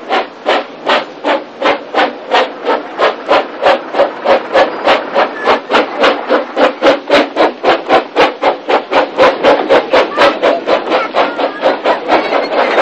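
Exhaust beats of the Welshpool & Llanfair Light Railway's Beyer Peacock 0-6-0 tank engine The Earl pulling away with its train under load. Sharp, even chuffs come about three a second, growing louder over the first few seconds and then quickening slightly.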